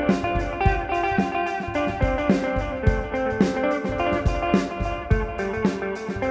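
Ambient instrumental jam: electric guitar through a modelling amp playing ringing, sustained notes over electronic percussion. The percussion keeps a steady beat with a Celtic shuffle feel.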